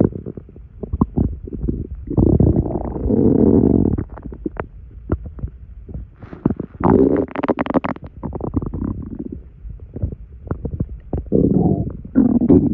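Stomach gurgling after a large amount of carbonated soda: many small pops and clicks, with longer bubbling gurgles about two seconds in, around seven seconds in, and near the end.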